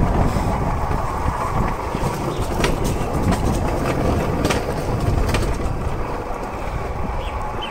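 Steel wheels of a rail bike rolling along railway track: a steady rumble with several sharp clicks as the wheels cross rail joints, whose gaps are widened by the rails contracting in the cold.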